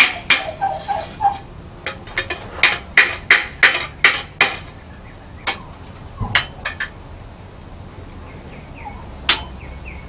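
Hand hammer striking the steel blade of a small trowel on an anvil, shaping it into a cupped blade: a quick run of blows, about three a second, for the first four seconds or so, then a few scattered strikes, the last one near the end.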